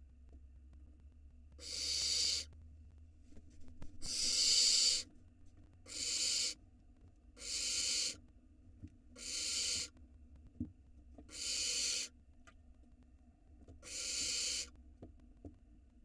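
Barn owl nestlings giving their rasping hiss, the 'snoring' food-begging call, seven times. Each hiss lasts about a second and comes every couple of seconds.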